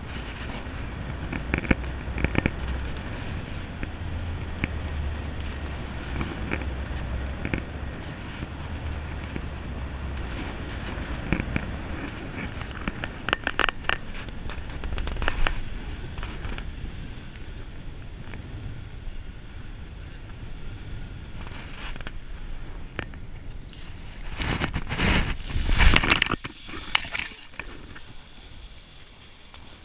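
Wind rushing over the microphone of a paramotor gliding down with its engine stopped, then a loud rustling crash about 25 seconds in as it comes down into leafy crop plants, followed by fainter rustling of leaves and gear.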